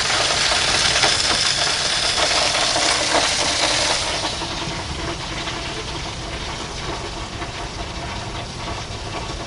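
Steady hiss and sizzle from a lit Weber Genesis II E-310 propane gas grill, with turkey breasts roasting on its rotisserie. It drops to a quieter hiss about four seconds in, as the grill lid closes.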